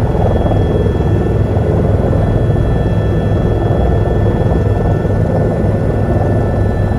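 Helicopter turbine engine and rotor running steadily, heard from inside the cabin: a loud, even low drone with a thin, steady high whine over it.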